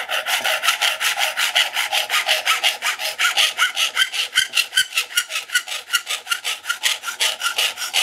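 Hand hacksaw cutting through a sapele-filled copper tube held on a bench hook, in fast, even back-and-forth strokes.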